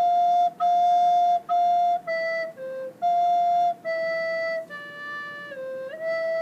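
Soprano recorder playing a slow phrase of single held notes, three repeats of one note and then stepping down and back up (F, F, F, E, C, F, E, D, C, E), played smoothly as a tutorial demonstration.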